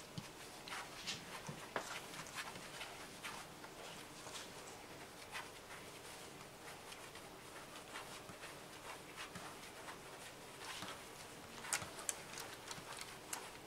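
Faint, irregular small clicks and rustles from newborn puppies nursing at their mother and shifting against her fur and the bedding.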